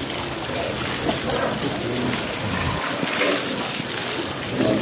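Water from a garden hose spraying and splashing over wet rock and walruses, a steady hiss.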